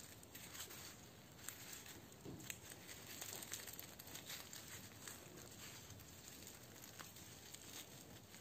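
Faint crackling and soft tearing of a flaky, pan-cooked msemen (Moroccan layered flatbread) being squeezed and pulled apart by hand, with scattered small crackles.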